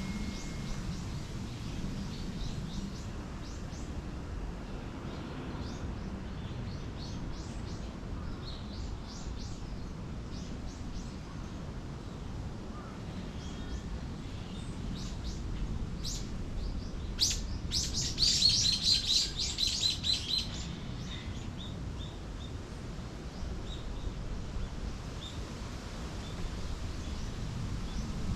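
Small songbirds chirping and twittering, with short high calls scattered throughout and a louder flurry of rapid chirps and trills about two-thirds of the way in. A steady low rumble of outdoor noise runs beneath.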